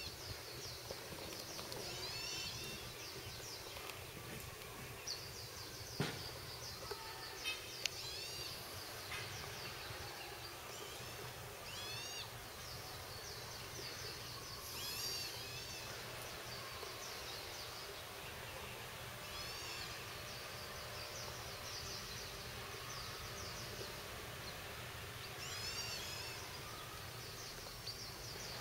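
Birds calling every few seconds in short phrases of quick rising-and-falling notes over a steady high insect buzz, with a sharp click about six seconds in.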